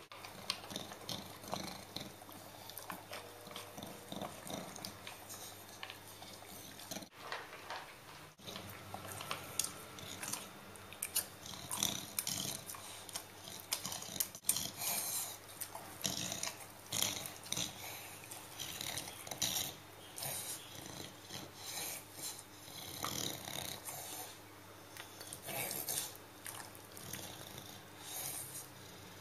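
An English bulldog eating dry kibble from a plastic bowl: irregular crunching, chewing and clicking.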